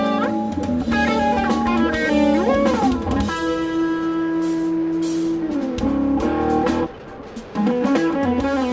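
Instrumental music: an electric guitar playing a melodic lead over a drum kit, holding one long note in the middle, with a short break near the end before the band comes back in.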